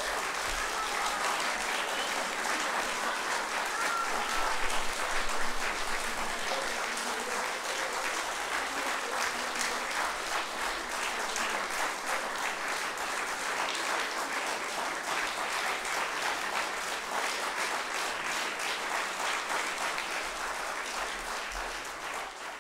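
Audience applauding steadily: many hands clapping in a dense, even patter that fades out right at the end.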